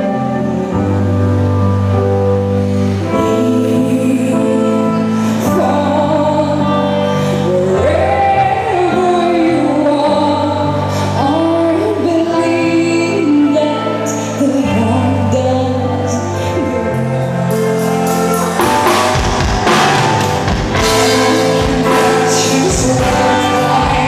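Live music: a woman sings over sustained keyboard chords, and drums and cymbals come in about eighteen seconds in.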